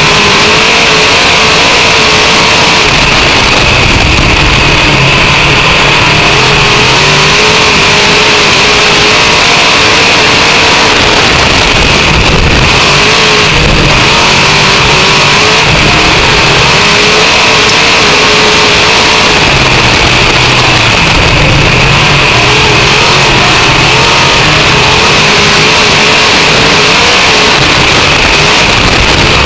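Race car engine heard loud from inside the cockpit at racing speed, its revs rising and falling again and again as the car goes around the oval.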